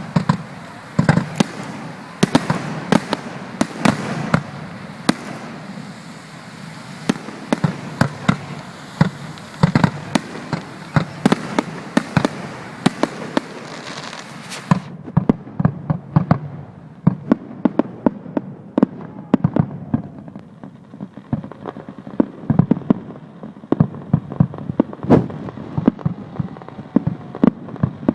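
Fireworks display: a rapid, irregular run of loud shell bursts and bangs. About halfway through the sound turns duller as the upper range drops away.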